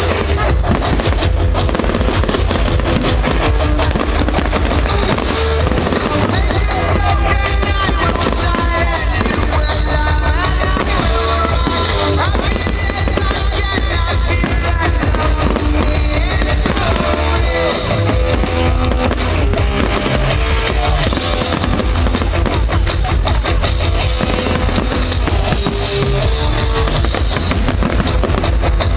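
Professional fireworks display going off: a steady stream of bangs and crackles from bursting shells, over loud pop music played for the show.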